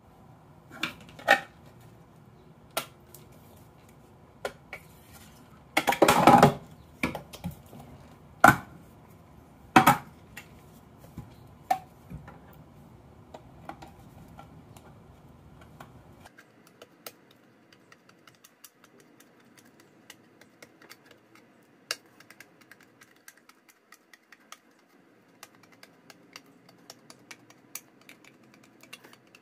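Metal tin can and a worn manual butterfly can opener being handled, with sharp clicks and knocks; the loudest is a clatter about six seconds in, with two more strong knocks soon after. From the middle on there are faint, irregular small ticks as the opener's cutting wheel is worked around the lid in short bites.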